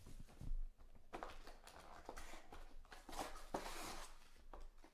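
A cardboard trading-card hobby box being handled on a table: a few soft knocks, with brushing and scraping of cardboard against hands and tabletop.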